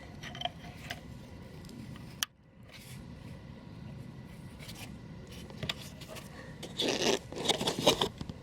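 Scraping and rubbing as parts are handled during hand work on a car, with a few light clicks. There is a sharp click about two seconds in and a louder run of scraping near the end.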